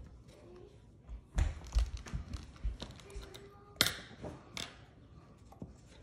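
Handling noise from surgery on a sedated Nanday conure at a table: soft thuds and taps about a second and a half in, then a sharp click near the middle and a smaller one soon after, as instruments and swabs are picked up and set down.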